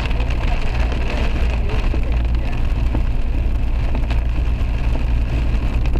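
Steady low engine and road rumble heard from inside a moving taxi, with tyres hissing on the wet road and rain on the car.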